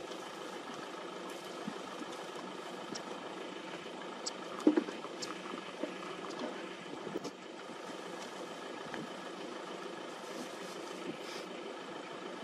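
Car engine idling steadily, with a few small clicks and one brief louder knock a little under five seconds in.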